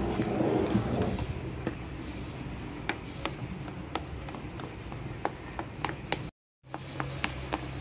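Metal spoon stirring thick cake batter in a ceramic dish, with scattered sharp clicks and taps of the spoon against the dish. The sound cuts out briefly about six seconds in.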